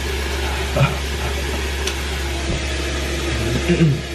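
Steady hiss with a constant low hum, the room noise of a small bathroom, with a couple of short breathy grunts about a second in and again near the end.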